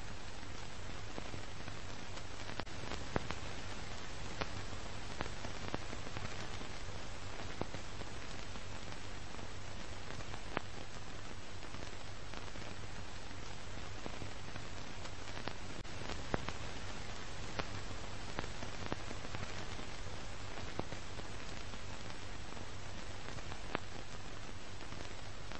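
Old-film soundtrack noise: a steady hiss over a low hum, broken by irregular clicks and pops.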